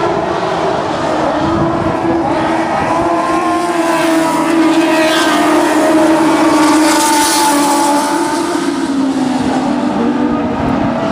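Lightning sprint cars racing on a dirt oval, several engines at high revs at once with their pitches rising and falling. The engines grow loudest as the pack passes close by around the middle, then draw away.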